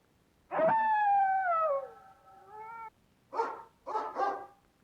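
Recorded dog sounds played back from an animal-sounds app: a long howl that falls in pitch, a shorter call, then two short, rough barks near the end.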